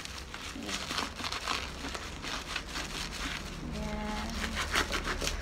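Plastic bubble-wrap mailer crinkling and crackling in quick, irregular bursts as it is handled and cut open with a kitchen knife.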